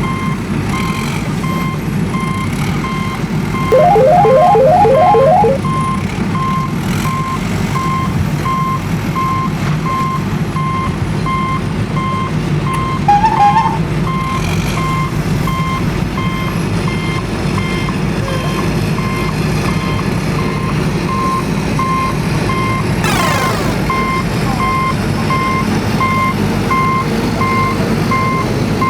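A truck's reversing alarm beeping in an even steady rhythm over a low, steady engine rumble. A louder rapid trilling sound comes in about four seconds in and lasts over a second, and a falling sweep sounds near the end.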